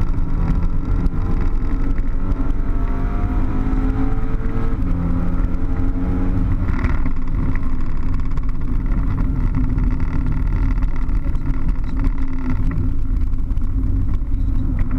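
A car's engine heard from inside the cabin on a circuit lap, pulling hard with its pitch rising over the first several seconds, then running on at speed under heavy road and wind noise, easing slightly near the end.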